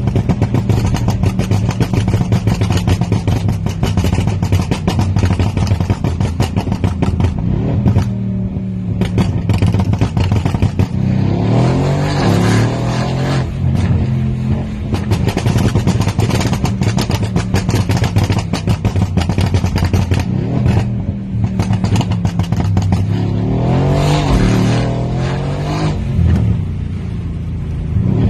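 Tuned Mercedes-AMG C63 S twin-turbo V8 running hard, its exhaust crackling rapidly throughout. The engine note sweeps up and down twice, near the middle and again near the end.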